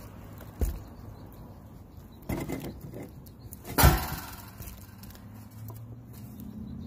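Metal-framed glass skylight handled and set down on asphalt shingles: a light knock, some scuffing, then a sharp knock with a short ringing after it about four seconds in.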